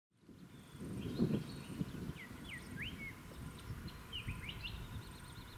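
Birds calling, a string of short rising and falling chirps and whistles with a brief trill near the end, over a low, uneven rumble. The sound fades in during the first second.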